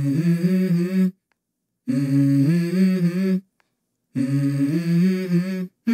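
Edited-in vocal music: a low voice humming a short melody in held, stepping notes, repeated as three phrases of about a second and a half, each followed by a brief silence.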